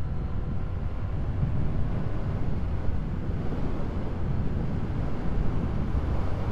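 Heavy wind noise rumbling on a lavalier mic fitted with a wind muff, over the 2023 Yamaha MT-07's parallel-twin engine running at highway speed, around 80 mph.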